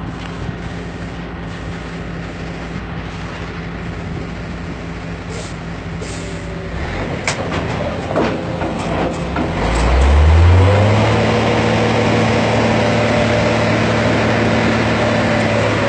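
Heavy diesel engine running at low revs, then revving up about ten seconds in and holding a higher, louder note, with a few short hisses and knocks just before the rev-up.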